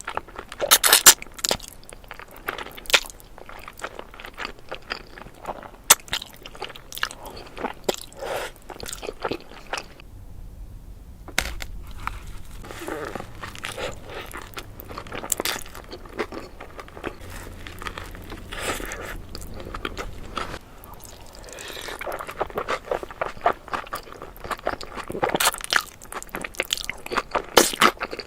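Close-miked eating sounds of spaghetti being eaten: wet chewing, smacking and crunchy bites in an irregular run, with a brief pause about ten seconds in.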